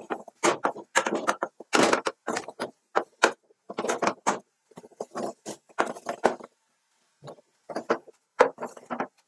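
Wooden spoon scraping and knocking against an aluminium saucepan as it stirs and mashes thick cabbage fufu dough. The strokes come in a fast, irregular series, with a pause of about a second about two-thirds through.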